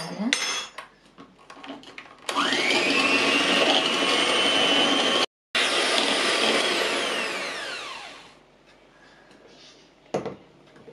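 Electric hand mixer beating egg yolks and powdered sugar. The motor whines up to speed about two seconds in and runs steadily, with a brief break midway, then winds down with a falling whine and stops. A single click comes near the end.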